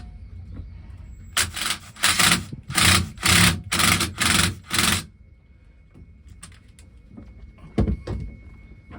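Seven short rasping scrapes in quick succession, about two a second, then small handling noises and a single knock near the end.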